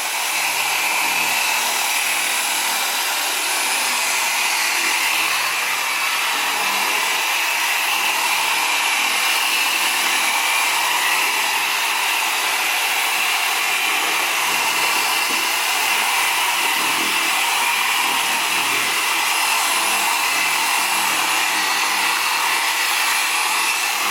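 Chemical Guys torque polisher running steadily, its pad working polish over car paint.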